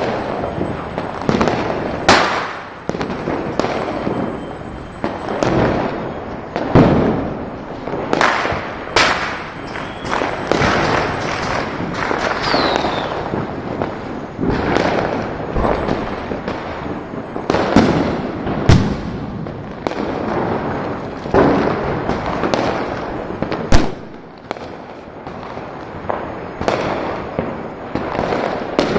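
Diwali firecrackers going off without a break: a dense run of overlapping bangs and crackles, with louder single blasts every few seconds. A short falling whistle comes about twelve seconds in.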